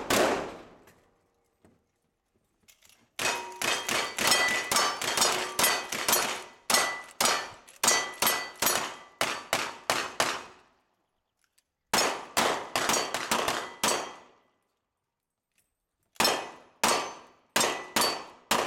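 Quick gunshots from a revolver and long guns, each with the ring of a steel target being struck. The shots come in three strings with short pauses between them, the first string the longest.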